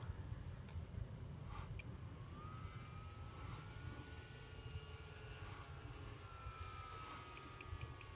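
Radio-controlled model airplane's motor and propeller heard faintly from high overhead, a thin whine drifting slowly in pitch, over a low rumble of wind on the microphone. Four quick short clicks near the end.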